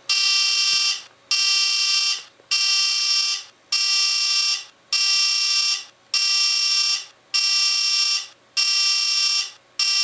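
Cell phone ringing with a ringtone cut from a recording of a Dover elevator's buzz: a harsh buzz about a second long, repeating with short gaps about every 1.2 seconds.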